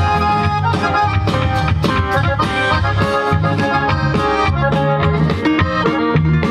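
Live band playing through outdoor PA speakers: an accordion carries the melody over bass guitar and a drum kit with a steady beat.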